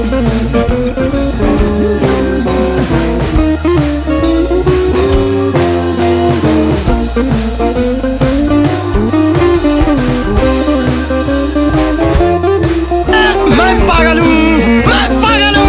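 Blues-rock background music with guitar and drums on a steady beat; a wavering high-pitched sound comes in near the end.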